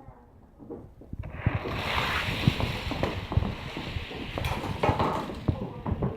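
Die-cast toy cars rolling along plastic Hot Wheels track: a steady rushing roll from about a second in until shortly before the end, with scattered clicks and clacks.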